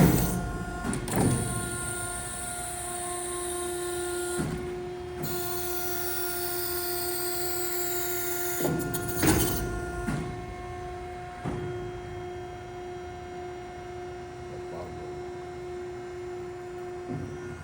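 Industrial four-roll CNC plate roll running, with a steady machine whine and several sharp knocks and clunks scattered through.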